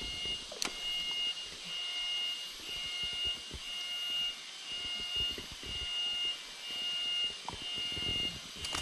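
A high, even note repeated in short, evenly spaced beeping pulses, the call of a forest insect or bird, with soft low knocks underneath.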